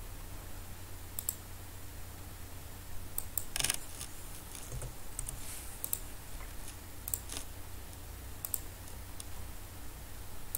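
Scattered clicks of a computer mouse and keyboard, mostly single clicks with a short flurry about three and a half seconds in, over a low steady hum.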